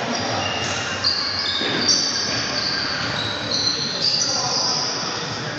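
Basketball shoes squeaking on a hardwood gym floor during play: many short, high squeals overlapping one another, with a couple of thuds about one and two seconds in.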